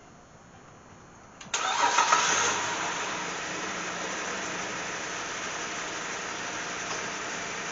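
Cadillac CTS engine starting about a second and a half in on a freshly recharged battery, flaring up briefly, then settling into a steady idle.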